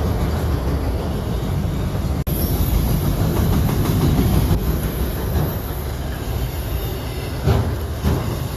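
Freight train cars rolling past with a steady heavy rumble, and a few wheel clacks over rail joints near the end.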